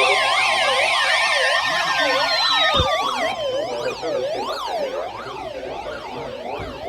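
Several siren wails sweeping up and down, about two sweeps a second, layered over a steady high weather-radio alert tone. The alert tone stops a few seconds in, and the sirens carry on, growing quieter.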